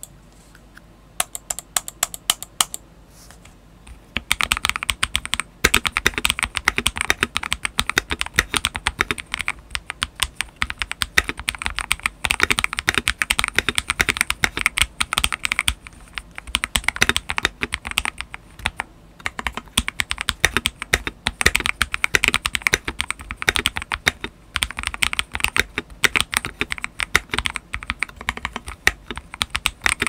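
Typing on a modded Tester84 mechanical keyboard with Panda Fish frankenswitches (Outemu Red Panda stems in Akko Starfish housings, dual-stage springs) and HexGears Soda doubleshot keycaps, the case treated with tape and PE foam. A few scattered key presses come first, then steady fast typing from about four seconds in.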